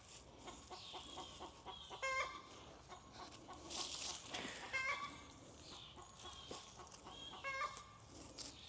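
Chickens clucking agitatedly, faint, with three sharp calls two to three seconds apart.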